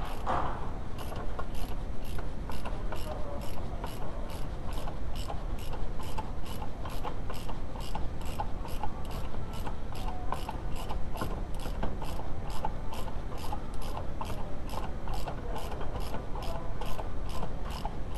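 Ratchet wrench clicking at an even pace, about two clicks a second, as it is worked back and forth to turn the forcing screw of a wheel bearing puller on a front wheel hub. A single knock comes right at the start.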